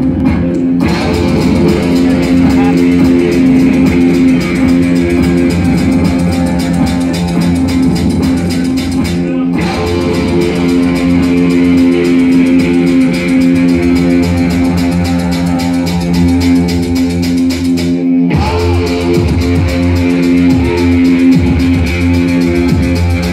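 Live music played loudly over a club PA, heard from within the crowd: steady bass under sustained, repeating tones, the upper range cutting back briefly twice.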